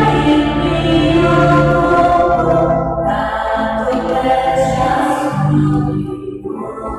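A hymn sung by a choir with accompaniment, slow held notes of a second or two each over a steady low note.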